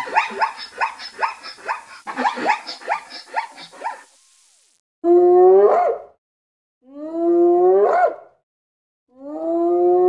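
Zebras barking in a quick run of short rising yelps for about four seconds, then a spotted hyena whooping: three long calls, each sliding up in pitch, about two seconds apart.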